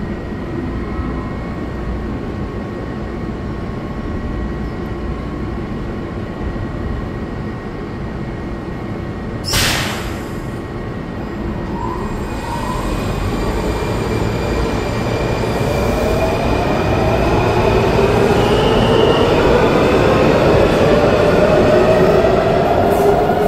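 A Washington Metro 3000-series train pulls out of the station. It starts with a low steady rumble, then a short sharp hiss about ten seconds in. After that the motors' whine rises steadily in pitch and grows louder as the train accelerates.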